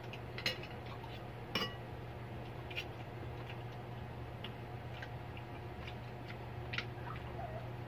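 Spoons and forks clinking and scraping on plates as two people eat, a handful of sharp clinks spaced a second or more apart, over a steady low hum.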